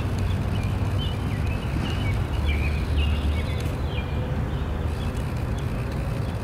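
Birds chirping over the first four seconds or so, over a steady low rumble of outdoor background noise.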